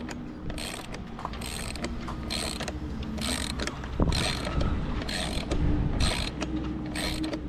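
Socket ratchet wrench clicking in short bursts about twice a second as it is worked back and forth, tightening the bolts of a stainless chain plate deck fitting on a sailboat's bow. There is a single sharper knock about four seconds in.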